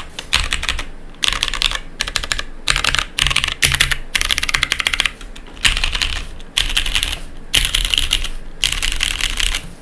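Mechanical keyboard being typed on fast: lubed and filmed Cherry MX Brown tactile switches on a polycarbonate plate, O-ring mounted, with GMK keycaps. Rapid bursts of keystrokes come in runs of about a second, broken by brief pauses.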